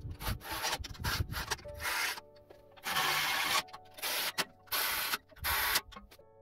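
Fast-forwarded work noise from bolting a steel bumper on with a cordless ratchet: a string of short, scratchy hissing bursts over soft background music.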